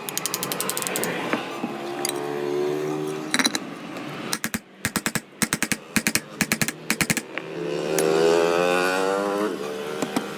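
Rapid mechanical clicking in quick runs, like a ratchet or gears, with a pitched whine that rises and falls near the end.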